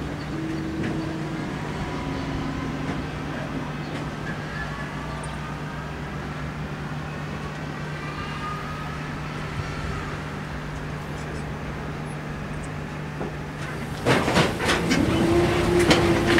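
Coaling crane working its grab bucket over a narrow-gauge steam locomotive: a steady machinery hum, with the hoist motor's whine gliding up and down in pitch. Near the end it turns louder, with sharp metallic clanks and knocks and the hoist whine rising again and holding.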